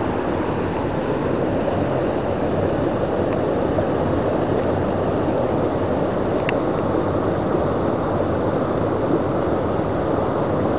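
Steady rushing of a fast mountain stream.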